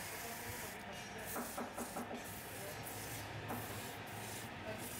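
Wooden table leg spinning on a wood lathe while a hand-held tool rubs against it: a steady rasping rub that eases off briefly several times, with a few light clicks near the middle.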